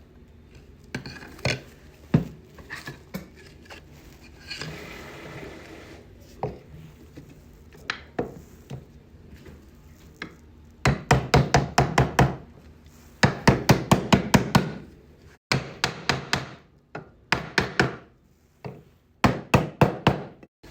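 Dovetailed wooden drawer sides being knocked together: scattered wooden knocks and a brief scrape, then several runs of quick taps, about seven a second, in the second half.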